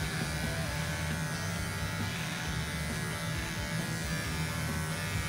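Handheld electric shaver buzzing steadily as it is run over a man's beard stubble, the hum wavering slightly as it is pressed against the skin.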